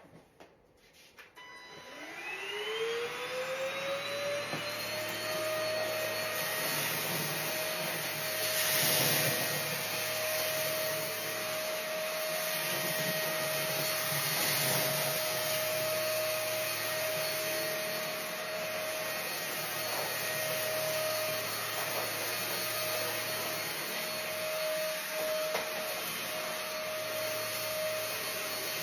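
N5T cordless vacuum cleaner switched on, its motor whine rising in pitch over a few seconds as it spins up, then running steadily with a high whine over rushing air as it sucks up spilled rice from the floor.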